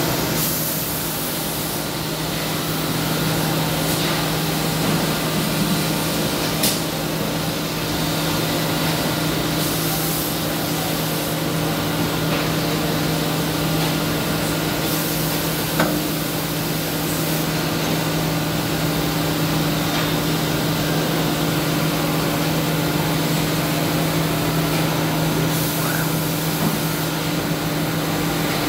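CNC wood-turning lathe running while it machines a wooden leg: a steady motor hum with a constant hiss of cutting. Several stretches of louder, higher hiss and a couple of sharp clicks come through it.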